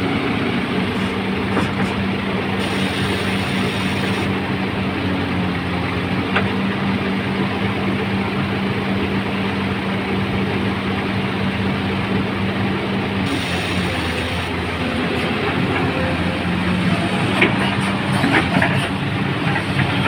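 XCMG XE215C crawler excavator's diesel engine running steadily with a constant low hum, with a few sharp knocks near the end.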